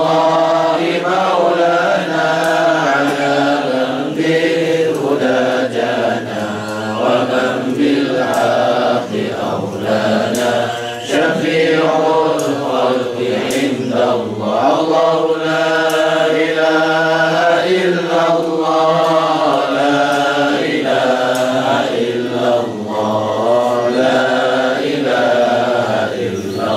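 A group of men chanting together in unison, a steady melodic religious chant with brief pauses between phrases, typical of Islamic dhikr recited in a group.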